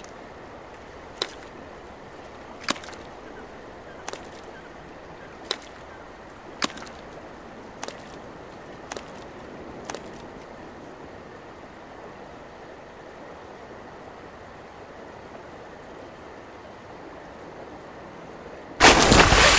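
A run of eight sharp cracks, about one every second and a quarter, over a steady hiss, then a loud crash near the end.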